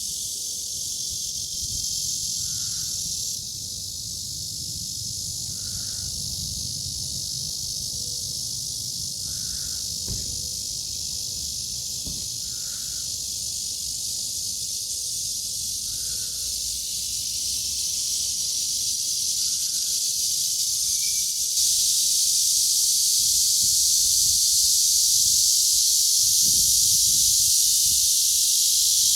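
A chorus of cicadas buzzing in a dense, steady, high-pitched drone, growing louder about three-quarters of the way through.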